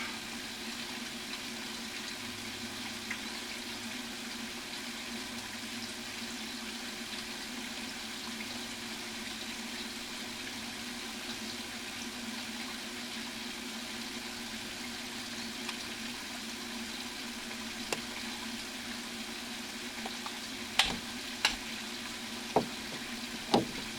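Steady hiss with a low hum underneath, and a few sharp knocks near the end from PVC drain pipe and fittings being handled.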